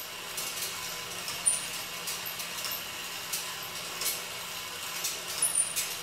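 Erector set amusement ride running on its small electric motor and pulley drive: a steady mechanical whir with scattered light metallic clicks and a couple of brief high squeaks.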